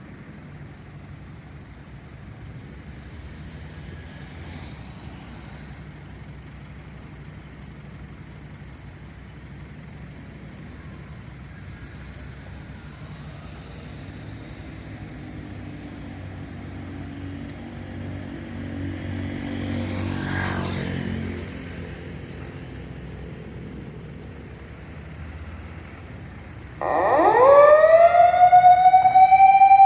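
Low engine rumble and street noise, with a vehicle passing about two-thirds of the way through. Near the end a fire truck's siren starts loud, its wail rising quickly in pitch and then holding: the truck setting off on an emergency call.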